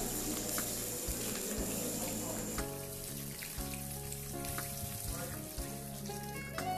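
Water poured in a steady stream into a hot wok of browned chicken pieces, splashing and sizzling. Soft background music with held notes comes in about two and a half seconds in.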